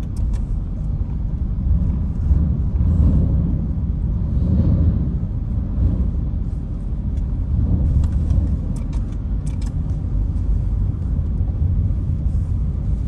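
A low, steady rumble from the ferry Yamato, with a few faint clicks scattered through it.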